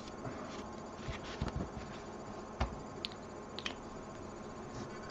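A few faint clicks and taps from a plastic paint dropper bottle being handled and picked up.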